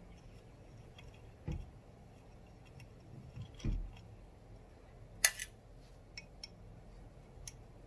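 Small metallic clicks and ticks of an Allen key turning out the screws on the front bezel of an LED pod light, with a sharper click about five seconds in and two dull handling bumps earlier.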